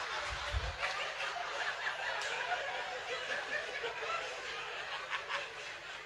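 Audience laughing, a spread-out ripple of chuckles that slowly dies down.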